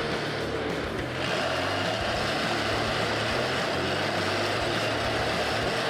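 Heavy logging truck's engine running steadily under load, with a brief dip about a second in.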